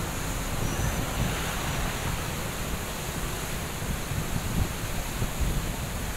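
Muddy floodwater rushing down a wide river bed in a steady roar, with wind buffeting the microphone.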